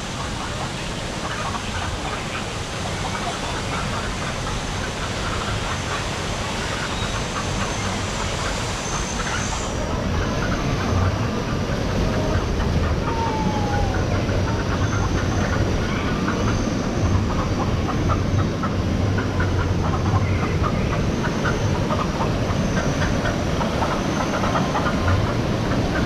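Rushing white water pouring steadily through the concrete channel of a river rapids raft ride, a little louder partway through.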